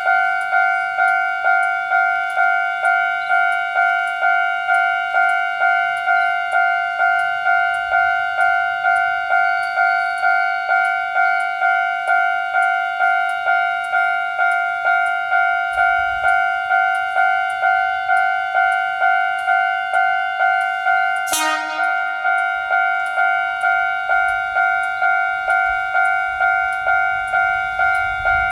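Japanese railroad crossing alarm ringing: an electronic bell striking at about two and a half strikes a second, steady throughout. About three quarters of the way through, a single short, sharp sound cuts in over it, and a faint low rumble comes and goes.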